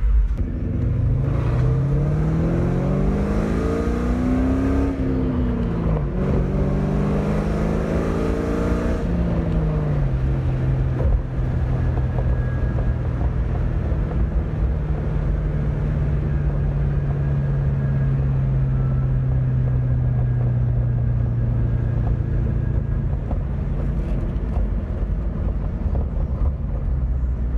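2001 Ford Mustang with a newly fitted aftermarket exhaust pulling away through the gears: the engine pitch climbs, drops at a shift about five seconds in, climbs again, drops at a second shift near ten seconds, then holds a steady drone while cruising before easing off near the end.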